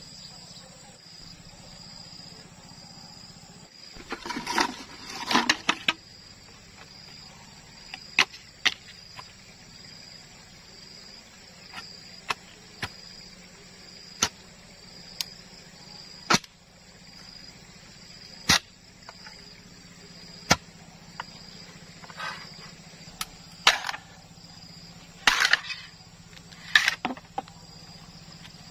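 Sharp, irregular knocks of a machete striking a bamboo pole, one every second or two, with a few short bursts of rustling as the bamboo is handled. Under them runs a steady, evenly pulsing chirr of insects.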